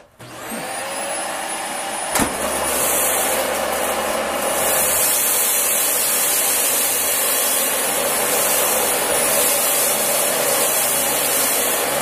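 Dyson DC40 upright vacuum cleaner switched on, its motor spinning up with a rising whine. A click comes about two seconds in and a low hum joins. The vacuum then runs steadily as it is pushed across carpet.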